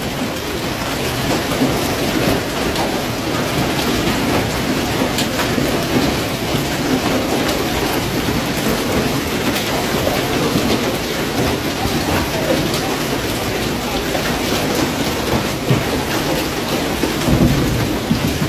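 Hailstones pelting down steadily in a dense clatter on parked cars and paved ground. A brief louder rumble comes near the end.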